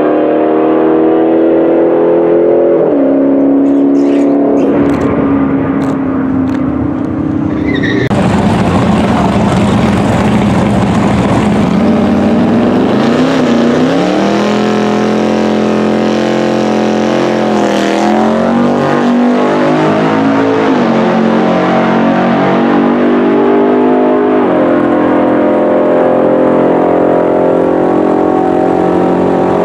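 For the first eight seconds or so, a vehicle's engine running on the drag strip. Then a Cummins-powered Dodge Ram diesel pickup idles in the water box, its engine rising in three short revs around the middle.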